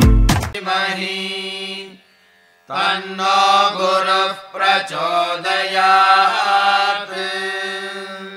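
A Hindu devotional mantra chanted by one voice on a steady pitch, in two long phrases with a short break about two seconds in. The last beats of a bass-heavy music track cut off in the first half second.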